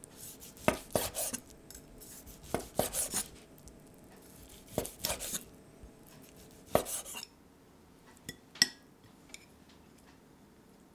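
Chef's knife slicing through a pan-seared chicken breast and knocking on a wooden cutting board, a cluster of cuts about every two seconds. Near the end, two short ringing clinks on a ceramic plate.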